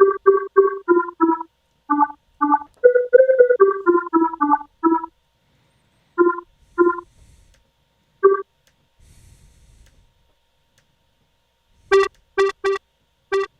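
Short, plucky synth notes from a resonant square-wave lead made in the Harmor synthesizer, played in a quick pattern that moves between a few pitches. The notes thin out and stop for about three seconds in the middle, then a faster run of repeated notes begins near the end.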